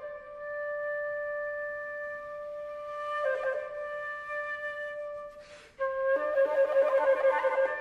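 Solo flute holding a long high note, with a brief flurry of ornament about three seconds in. A quick breath comes about five and a half seconds in, then the flute takes up the note again and breaks into a rapid, fluttering passage.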